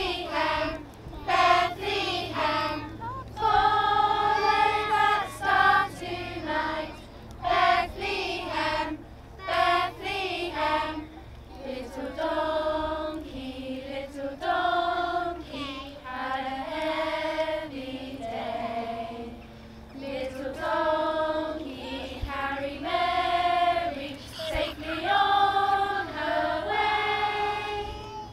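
A group of young children, with adult voices among them, singing a song together in sung phrases with some long held notes.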